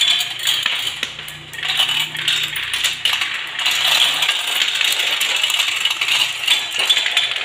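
Small marbles rolling and clattering down the chutes and spirals of a plastic marble run: a steady rattle of many quick clicks that dips briefly about a second in.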